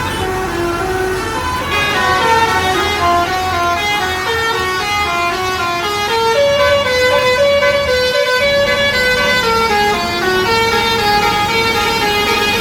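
Indonesian 'telolet' multi-tone bus horn playing a continuous tune of short stepped notes, several notes a second.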